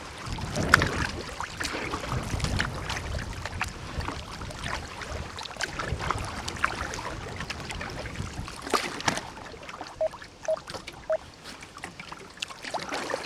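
Kayak paddling: water splashing and trickling off the paddle blades, with many small drips and light knocks. There is a heavier surge of water noise in the first few seconds.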